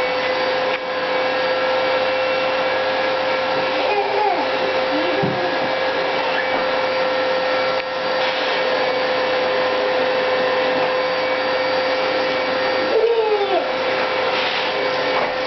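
Household vacuum cleaner running steadily: a continuous rushing noise with a steady whine held at one pitch.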